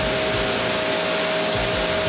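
A machine running steadily, with a constant whine over an even rushing hiss and a few soft low thumps.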